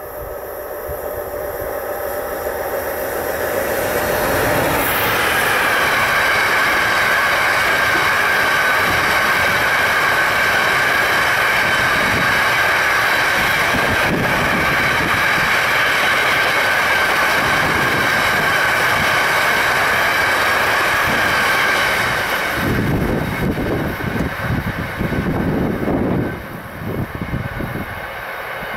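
A train passing close by on the track: its rolling noise builds over the first few seconds and holds steady for a long stretch, then the high part drops away into an uneven rumble of wheels that fades near the end.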